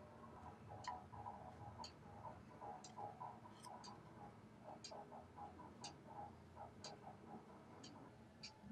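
Faint ticking of a clock, about once a second, with soft crinkling of a folded paper flower being handled in between.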